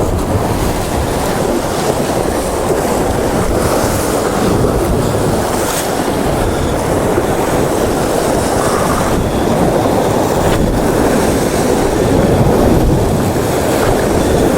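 Steady roar of heavy sea swell surging against the rocks, with wind buffeting the microphone.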